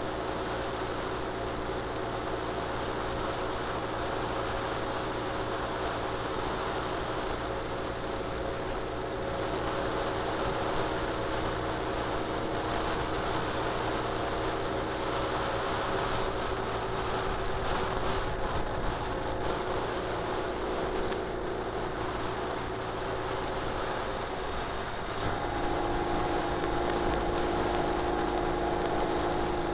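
Ural Retro sidecar motorcycle's air-cooled boxer-twin engine running at road speed, with steady wind and tyre noise. About 25 seconds in the engine note changes pitch and gets a little louder.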